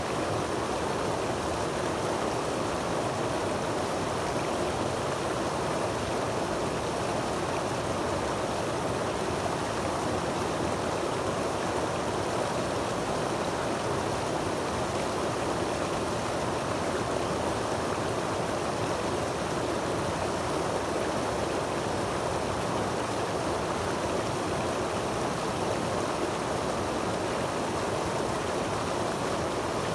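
Creek water rushing and splashing down a small cascade over boulders into a pool: a steady, even rush with no breaks.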